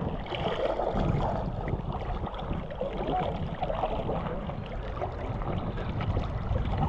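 Seawater sloshing and lapping around the boat's hull and the camera held at the surface, with wind rumbling on the microphone.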